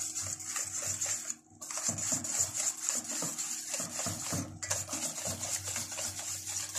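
Control knobs of a countertop electric oven being turned and a button pressed: irregular small clicks and rubbing of plastic and metal.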